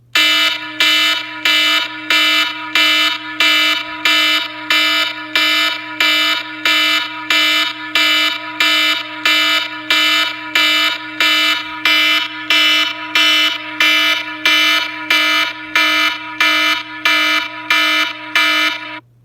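An iPhone ringtone playing through the phone's speaker: a buzzy, alarm-like tone pulsing steadily about one and a half times a second, then cutting off suddenly near the end.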